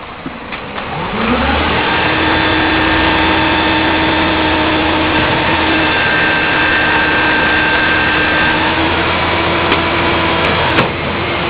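Heil 5000 rear-loader garbage truck's diesel engine revving up about a second in and then holding at a steady raised speed, with a steady whine over its running.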